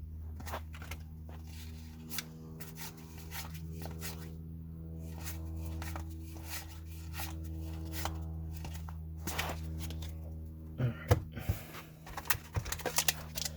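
Trading cards being handled and flipped through by hand: soft clicks and slides of card on card over a steady low hum, with louder sharp clicks near the end.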